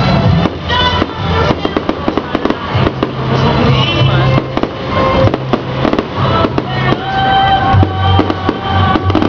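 Aerial fireworks launching and bursting in rapid, irregular bangs and crackles, with music playing at the same time.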